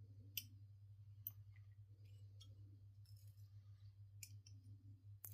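Faint, scattered clicks of small hard parts being handled, about five over a few seconds, over a low steady hum.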